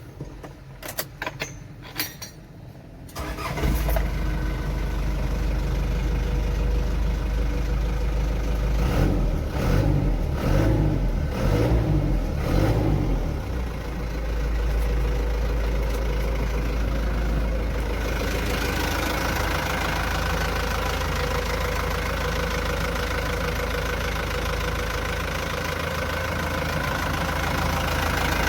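A few clicks, then a Hino 300 truck's diesel engine starts about three seconds in on its newly replaced battery. It runs unevenly for a few seconds and then settles into a steady idle.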